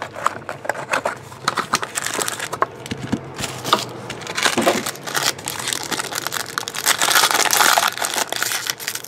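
Foil wrapper of a trading-card pack crinkling as hands handle it, with scattered taps and crackles. It is then pulled open with dense, loud crinkling of the foil near the end.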